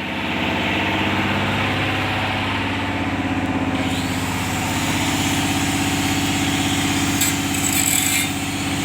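A large engine idling steadily, with a brief burst of high hissing noise about seven seconds in.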